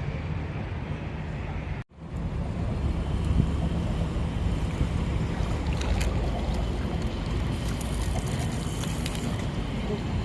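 Small boat's motor running steadily, with wind buffeting the microphone. The sound drops out for an instant about two seconds in, then carries on.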